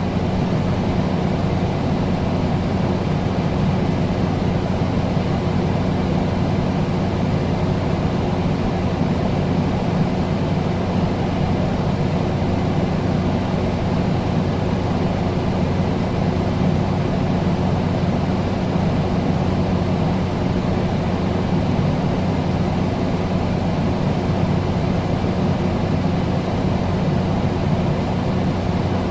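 Air conditioner running steadily: an even rushing noise of moving air with a constant low hum underneath.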